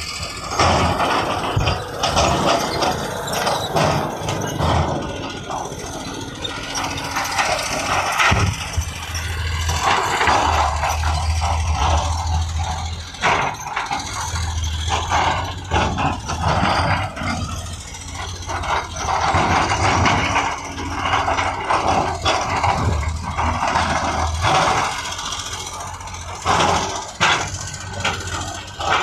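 Heavy earthmoving machinery at work: a deep engine running and fading in and out with the load, with repeated clanks and rattles of metal on metal.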